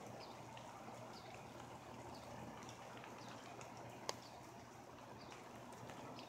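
Faint light rain outdoors under a tree: a steady soft hiss with scattered small drips and patters, and one sharp tick about four seconds in.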